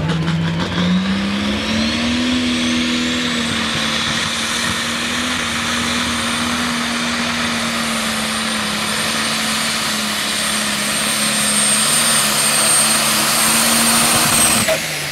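John Deere super stock pulling tractor's turbocharged diesel engine at full throttle under load on the sled. Its pitch climbs over the first two seconds and then holds steady, with a high turbo whine above it. Both drop away near the end.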